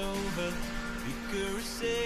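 Background music: a song with a singing voice over an instrumental backing.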